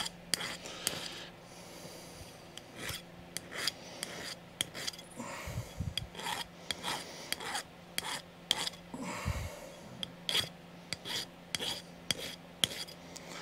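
Chainsaw file rasping in short, irregular hand strokes across a small metal part, taking the rough machining edges off a cheap copy-carburettor part.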